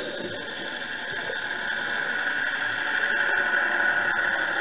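Steady underwater hiss picked up through a dive camera's housing, with faint scattered clicks.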